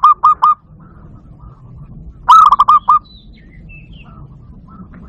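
Barred dove (zebra dove, bato-bato) calling: a phrase of quick, staccato cooing notes about two seconds in. The end of one phrase comes at the start, and the next begins right at the end, the phrases repeating roughly every two and a half seconds.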